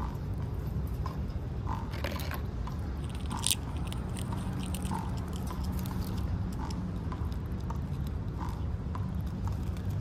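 A squirrel chewing and crunching peanuts, short soft bites every second or so over a steady low rumble. A single sharp click comes about three and a half seconds in.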